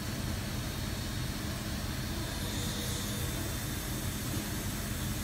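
Steady hum and hiss of a Soraluce FL5000 CNC horizontal milling machine running as its universal milling head swivels, with a faint whine about halfway through.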